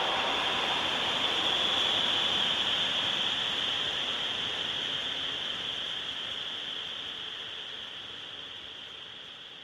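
Horror sound effect of a high-pitched breath gasp processed with delay and reverb: a hissy, breathy tail that slowly fades away.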